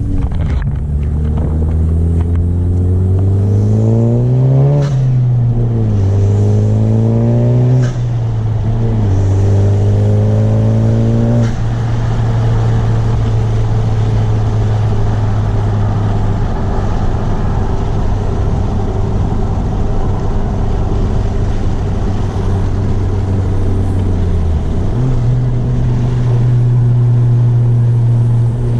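Honda Civic's turbocharged four-cylinder with a PRL Cobra cold air intake, heard from inside the cabin while driving. The revs climb and drop three times as it shifts up, then hold steady at a cruise, and climb again near the end.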